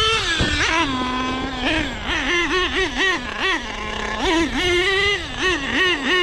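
Nitro engine of a Savage X RC monster truck revving in quick throttle blips, about three a second, its pitch jumping up and falling back, settling to idle twice between bursts. It keeps pulling strongly on an emptied fuel tank without leaning out.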